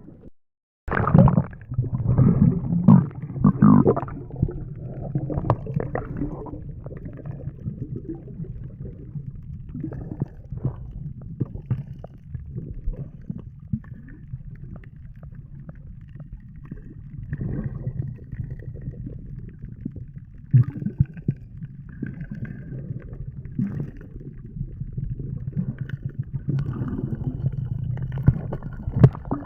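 Wind rumbling on the microphone in irregular gusts over a steady low hum, the gusts strongest for the first few seconds.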